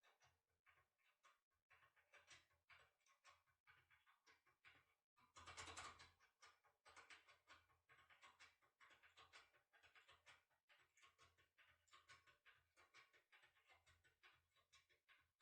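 Faint, irregular small clicks and scratches of a foil impression pick being worked back and forth inside a Fuaro R600 cylinder lock, with a slightly louder scraping stretch about six seconds in.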